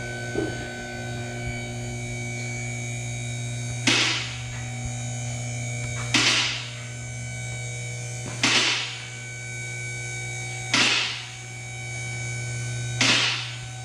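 Two-post car lift's electric hydraulic pump motor running with a steady hum as it raises a car. Five clacks about two seconds apart, starting about four seconds in, as the lift's safety locks pass each catch.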